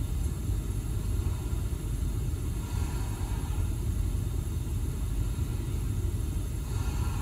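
Steady low rumble of background noise, with a soft, slow breath swelling about every four seconds.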